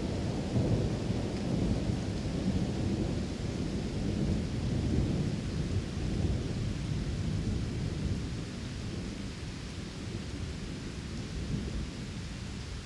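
Thunder rumbling low and long over steady soft rain, the rumble easing off about two-thirds of the way through.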